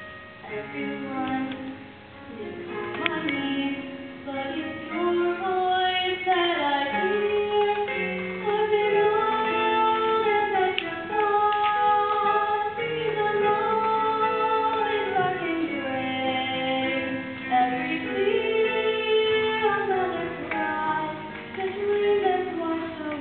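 A girl singing a slow musical-theatre solo in long held notes over instrumental accompaniment.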